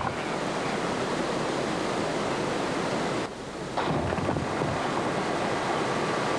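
River water rushing over rapids, a steady noise that drops briefly about three seconds in, then comes back.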